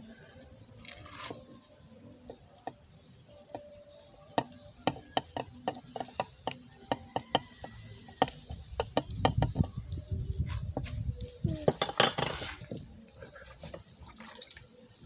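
Kitchen dishes and utensils clinking and knocking, with a run of sharp, slightly ringing clicks at about two a second and then a louder rushing noise about three-quarters of the way through.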